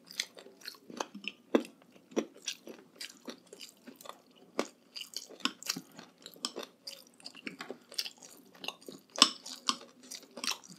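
Close-up chewing of food with many irregular, crisp crunches and wet mouth sounds.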